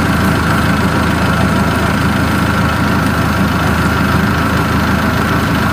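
Diesel engine of farm machinery idling steadily: a constant low engine drone with a steady higher tone on top.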